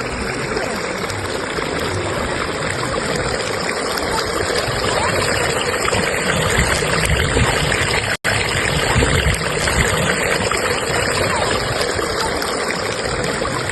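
Fast-flowing stream current rushing steadily over rocks, a dense, even water noise. The sound cuts out for an instant about eight seconds in.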